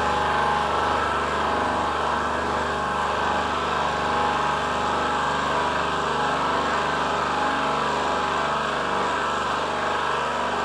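Hydraulic power supply running steadily, driving an HKS TR 90 tilt rotator through its hoses as the rotator tilts under test.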